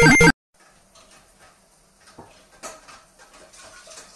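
A synth melody that cuts off abruptly, followed by a quiet room with a few faint scattered taps and knocks.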